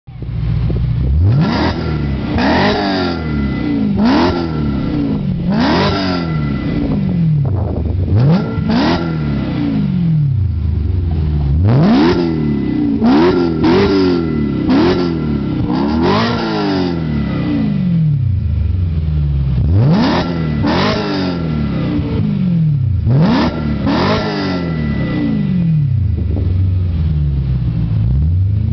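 BMW E92 M3's 4.0-litre V8 through an RPi GT Race V2 exhaust, free-revving in short sharp blips that rise quickly and fall back to idle, about fifteen times in clusters, with stretches of steady idle between.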